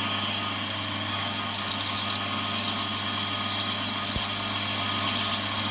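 Warco lathe running with a 21mm twist drill cutting steadily through a solid aluminium blank, shedding spiral swarf. The chatter of the drill's start has stopped and the drill is forcing its way through at an even, steady sound.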